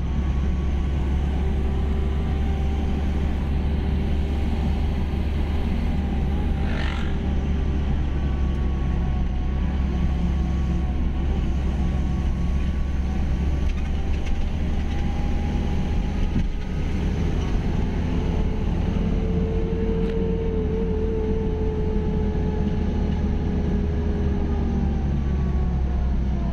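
Intercity coach on the move, heard from inside the passenger cabin: a steady low engine and road rumble, with faint whining tones that drift slowly in pitch. There is a brief high squeak about seven seconds in.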